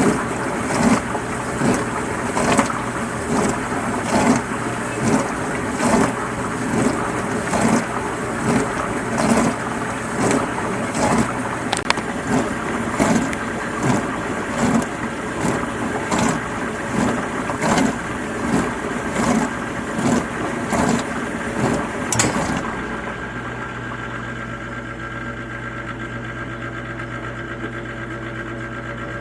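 Dishwasher running with a rhythmic swish of water about every second. About 22 seconds in the swishing stops and only a quieter, steady motor hum remains.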